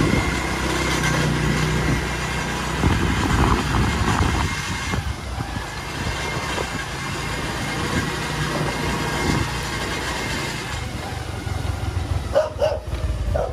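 Motorcycle engine running, with steady road noise.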